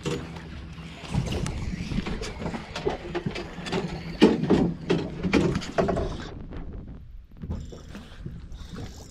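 Irregular knocks, clatter and handling noise aboard a small fishing boat as a landed snapper and gear are handled, with the loudest knocks about four to six seconds in, over a low steady rumble.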